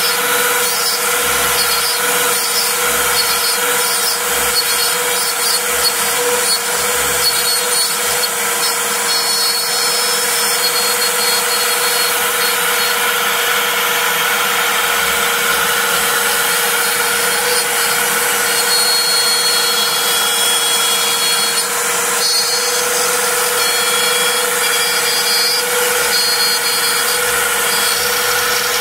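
Router spindle on a Mostly Printed CNC running steadily while a 1/8-inch bit slots 12 mm deep through MDF at full feed, the bit's cutting noise steady under the motor's whine. Short high tones come and go and shift in pitch as the stepper motors drive the axes around the cut.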